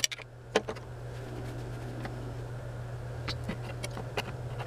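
Hand tool cutting around the rim of a steel ammunition spam can, giving a few small metallic clicks and scrapes spaced about a second apart over a steady low hum.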